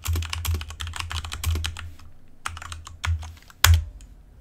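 Fast typing on a computer keyboard. A dense run of keystrokes lasts about two seconds, there is a brief pause, and a few more keys follow. Then comes one harder keystroke near the end: the Enter key sending the command.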